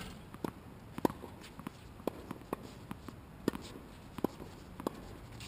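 Tennis ball being bounced on a hard court ahead of a serve: a string of sharp, separate pops, roughly one every half second to second.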